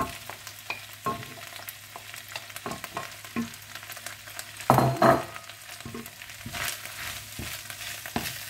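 Wooden spatula stir-frying sliced bamboo shoots and pork belly in red curry paste in a wok, with a light sizzle under frequent clicks and scrapes of the spatula against the pan. There is a louder clatter about five seconds in.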